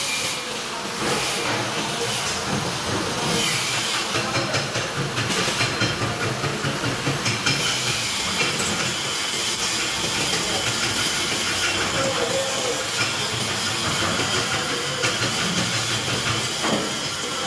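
Electric arc welding: the arc sizzling with a steady, rapidly flickering hiss as the electrode burns on the steel.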